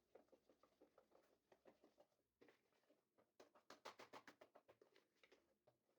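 Near silence, with faint soft ticks of a spoon stirring semolina batter in a bowl, and a quicker run of them about three and a half seconds in.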